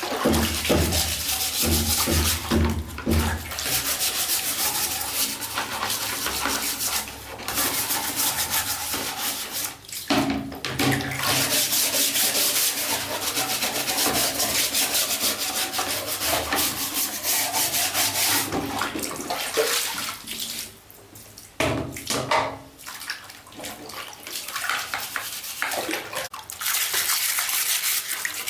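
Rough rubbing or scrubbing strokes against a hard surface, a continuous scraping hiss with brief pauses partway through.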